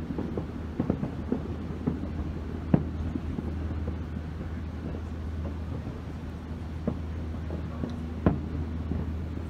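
Scattered pops of fireworks, the loudest a little under 3 s in and about 8 s in, over a steady low rumble.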